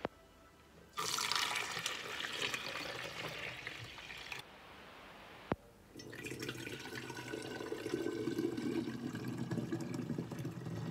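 Homemade lemonade being poured: first a splashing stream through a mesh sieve into a plastic measuring jug for about three seconds, then, after a short pause and a single click, a fuller-sounding pour into a glass bottle that runs on to the end.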